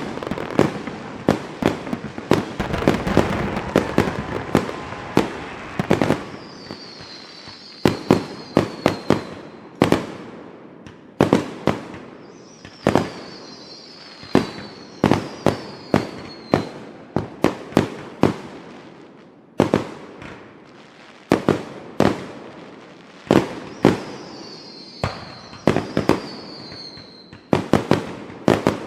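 Fireworks going off in a rapid, irregular run of sharp bangs, densest and overlapping in the first few seconds. Through three stretches, high whistles glide down in pitch among the bangs.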